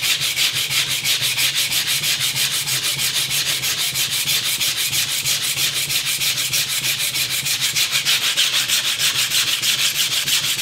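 A strip of sandpaper held on a rubber door wedge, rubbed rapidly back and forth along a rusty knife blade at about five strokes a second: hand-sanding the rust off the blade.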